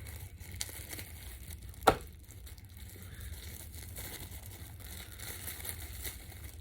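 Plastic takeout food packaging crinkling and rustling as it is handled, with one sharp tap or click about two seconds in.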